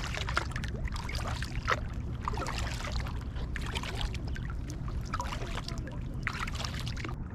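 Double-bladed kayak paddle strokes dipping and splashing in the water on alternating sides, about one a second, over a steady low rumble.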